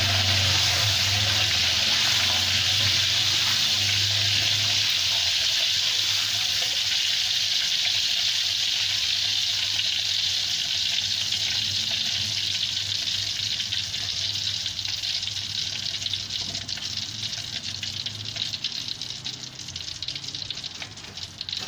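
Sliced garlic deep-frying in hot oil in a wok, a steady sizzle. The garlic has fried golden and is being scooped out, and over the last few seconds the sizzle fades and turns to scattered crackles.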